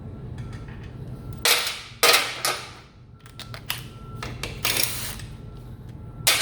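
Several sharp clacks and knocks of tools and parts being handled during work on a motorcycle's airbox, loudest about one and a half and two seconds in and again near the end, over a steady low hum.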